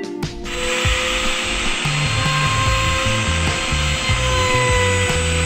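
Compact trim router starting up about half a second in and running with a steady high whine, its bit cutting a round speaker hole through a fiberglass boat panel along a wooden jig.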